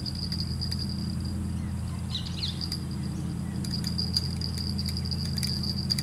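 Riverbank bush ambience: an insect trilling steadily at a high pitch, breaking off for about a second and a half near the middle, with a couple of short bird chirps during the gap and a low steady rumble underneath.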